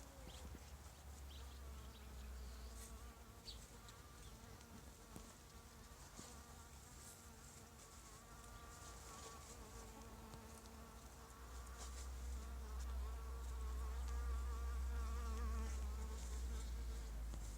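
Violet carpenter bee (Xylocopa violacea) buzzing steadily, the buzz wavering slightly in pitch, with a low rumble growing louder about two-thirds of the way through.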